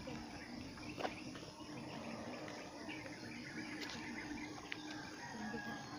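Insects chirring in a steady high trill, with a low broken hum beneath and a couple of soft knocks, about a second in and again near four seconds.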